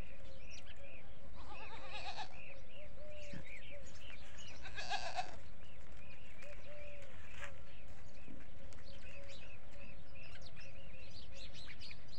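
Desi goats bleating in a pen: two quavering bleats, one about a second and a half in and another about five seconds in.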